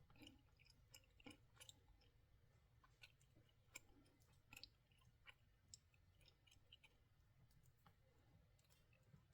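Near silence, with faint scattered clicks and light handling noises at irregular intervals over a low steady hum.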